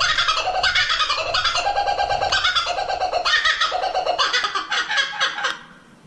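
Laughing kookaburra giving its laughing call: a fast run of repeated notes that breaks off about five and a half seconds in.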